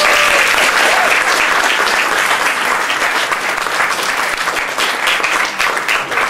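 Audience applauding, loudest at the start and easing a little toward the end, with many individual claps standing out.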